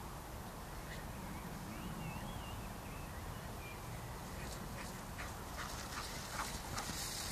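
A bird's short warbling call about two seconds in, over a low steady rumble. Then a run of quick rustles and taps that grows louder near the end as the dog runs through the grass close by.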